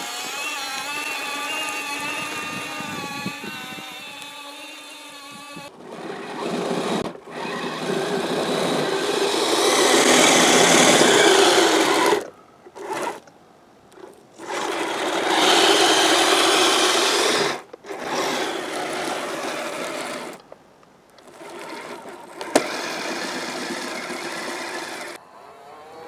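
Electric radio-controlled snowcats running on their tracks through snow. A wavering electric-motor whine comes first, then the drivetrain and tracks run in loud bursts that stop and start several times as the throttle is opened and released.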